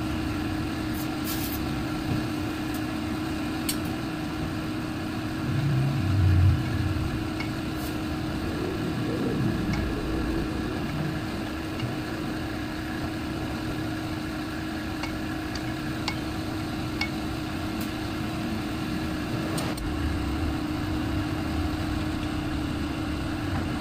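Steady motor hum holding one even tone, with a few light metal clicks from the tap wrench and hand tools working on the aluminium engine case.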